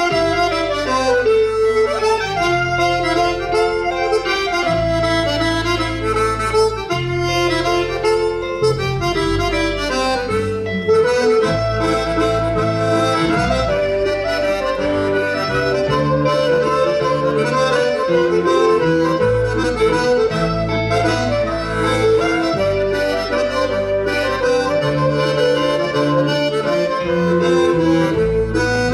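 Instrumental music for Breton dancing: a free-reed melody over a bass line that changes note every second or two.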